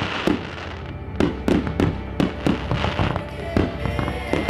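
Aerial fireworks going off in rapid succession, a quick run of sharp bangs about three a second.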